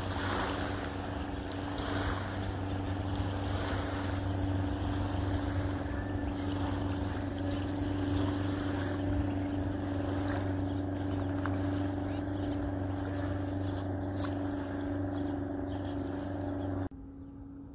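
Watercraft engine running with a steady drone, over wind and water noise. The lower part of the drone cuts off abruptly near the end.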